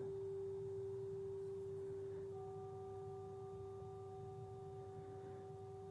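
Soft meditation background music: a steady, pure, held tone, with two higher tones joining about two seconds in, slowly fading.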